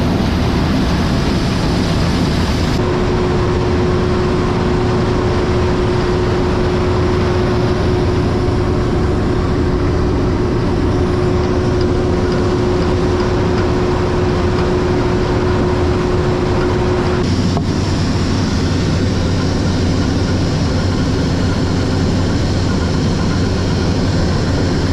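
Heavy farm machinery running steadily under load, with a steady whine through the middle and abrupt changes where shots are cut together.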